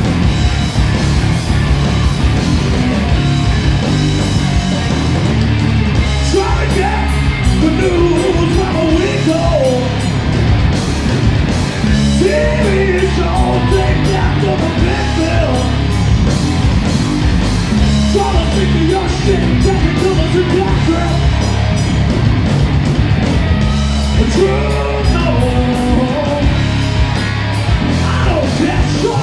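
Live heavy rock band playing loud: electric guitars, bass and drum kit, with a singer's vocals coming in from about six seconds in.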